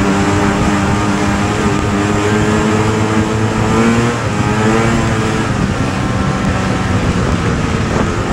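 Snowmobile's two-stroke engine running at a steady trail-riding speed, heard from the rider's seat. Its pitch climbs a little three to four seconds in, drops back, then holds steady.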